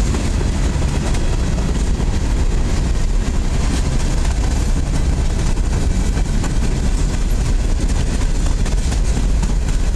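Freight train hopper cars rolling past close by: a steady rumble of steel wheels on the rails, with occasional faint clicks.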